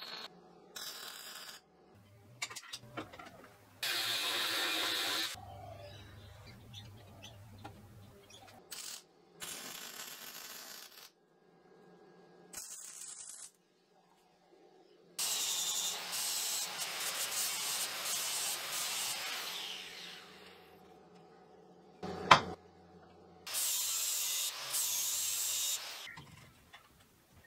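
MIG welding hooks onto a steel rebar crossbar: a series of crackling, hissing welds of a second to several seconds each, starting and stopping abruptly, with a sharp metal knock and wire-brushing of the welds between them.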